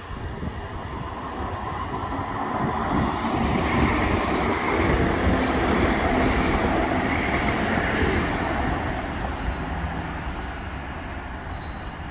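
Coupled pair of Siemens Combino trams passing on rails. The running and wheel noise builds up, is loudest around the middle, then fades away.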